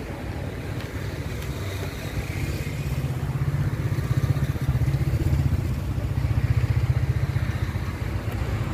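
An engine running steadily nearby, a low pulsing rumble that grows a little louder about two seconds in.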